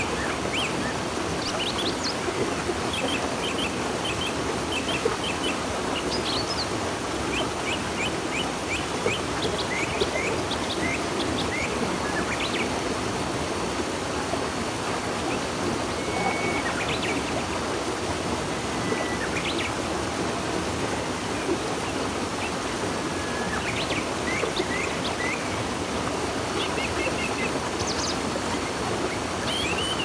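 A river rushing steadily, with small birds calling over it throughout in short chirps, quick runs of repeated chirps and a few brief whistles.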